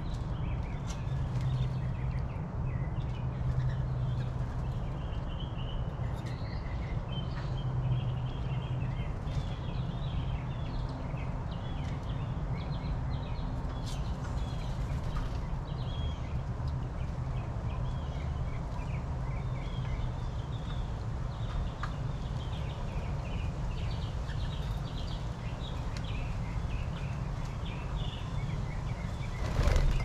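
Small songbirds chirping and calling over and over, short bright notes over a steady low outdoor rumble. A louder knock comes near the end.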